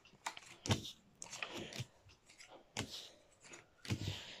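Playing cards being handled and dealt onto a tabletop: a string of short, irregular snaps and soft slaps of card on card and on the table.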